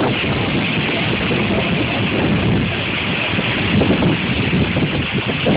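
Strong hurricane wind blowing over a phone's microphone: a loud, steady rush with a shifting low rumble.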